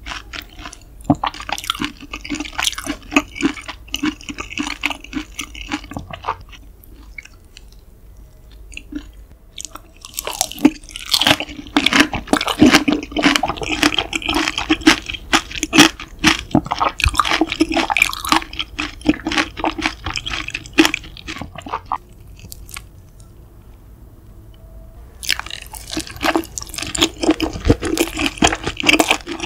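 Close-miked chewing of grilled beef large intestine (daechang): wet, squishy mouth sounds with quick clicks and smacks. The chewing comes in three runs, broken by two short pauses, one about seven seconds in and one about twenty-two seconds in.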